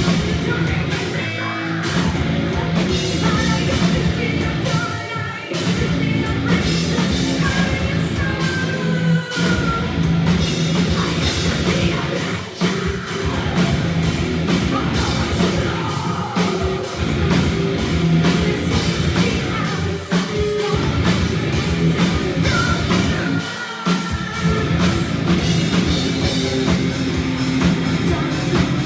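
Metal band playing live: distorted electric guitars, bass and a drum kit at full volume, with a female lead vocalist singing over them.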